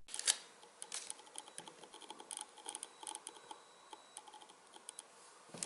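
Faint, irregular light clicks and taps of small watch parts being handled while work on the watch dial and movement begins.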